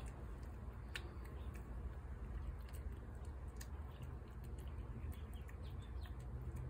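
A cat eating canned food from a saucer: scattered small clicks and smacks of chewing and licking over a low steady rumble.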